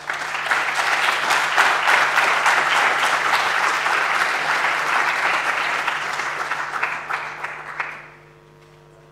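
Audience applauding, starting all at once and dying away about eight seconds in.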